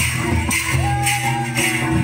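Indian folk dance music: a drum beat with jingling, shaker-like percussion over sustained low notes and a held higher melody note.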